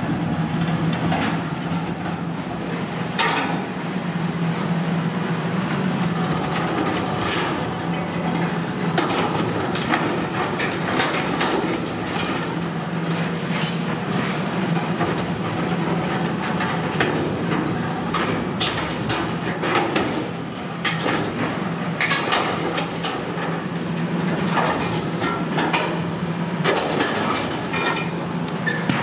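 High-reach demolition excavator's diesel engine running under load with a steady drone, while its demolition jaws crush and tear the sheet-steel silo wall in irregular metallic crunches, creaks and clanks.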